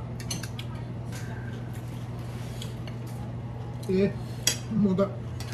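Spoons and forks clicking and scraping on plates during a meal, a string of small clinks over a steady low hum. About four seconds in, a few short vocal sounds are the loudest part.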